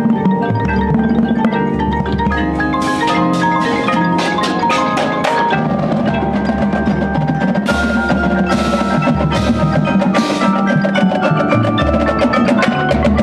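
Indoor percussion front ensemble warming up: several marimbas and other mallet keyboards playing a chordal passage together, with low bass notes underneath and sharp percussion hits.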